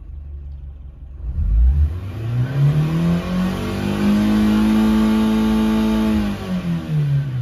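2016 Fiat 500's 1.2-litre eight-valve four-cylinder petrol engine, warm and in neutral, revving up from idle to about 6,000 rpm, held there for about two seconds, then falling back toward idle near the end. It is one of three full revs that complete the phonic wheel learn after an ECU adaptation reset.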